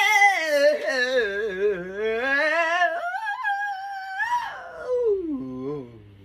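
A person singing a wordless vocal run to show off range: one long, warbling note that slides down, climbs back, jumps up high, then glides down and fades out low near the end.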